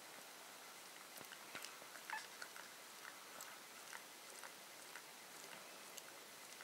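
Faint small wet clicks and smacks among 1.5-week-old Italian Greyhound puppies and their mother, with a short high puppy squeak about two seconds in.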